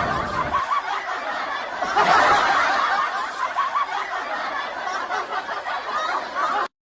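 Several people laughing together, a dense mix of snickers and chuckles, cutting off abruptly near the end.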